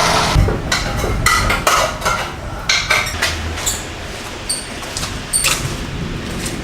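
Irregular sharp knocks and clinks of hard objects being handled, over a steady background noise.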